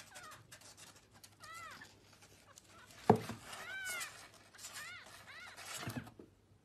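Kitten mewing: several short, high-pitched mews, each rising and falling. A thump about three seconds in and another near the end.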